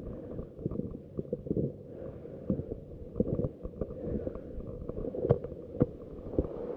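Muffled rustling and irregular soft knocks from an action camera lying in the snow as a skier shuffles up and reaches down to pick it up.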